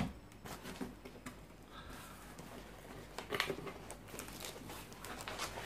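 Cardboard box being handled and its flaps opened, with light scuffs and rustles and a louder scrape about three and a half seconds in.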